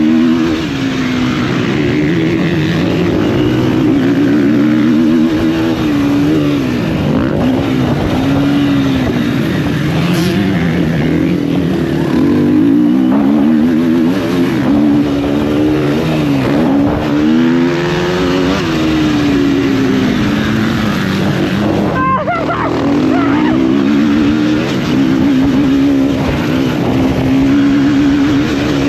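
Motocross bike engine being ridden hard, its pitch climbing and dropping again and again with throttle and gear changes. There is a brief break with a few knocks about 22 seconds in.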